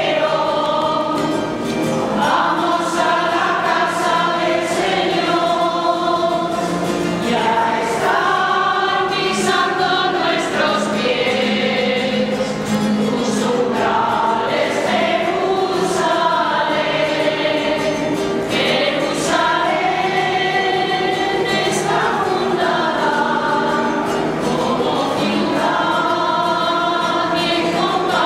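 Church choir singing a slow hymn, moving through long held notes, in a stone-vaulted church.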